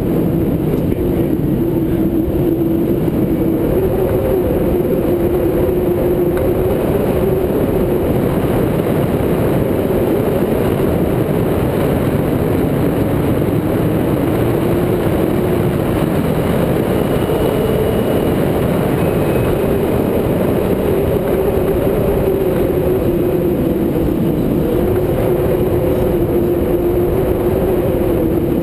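Loud, steady wind rushing over the microphone of a camera mounted on a flying tandem hang glider's wing, with a low wavering hum underneath.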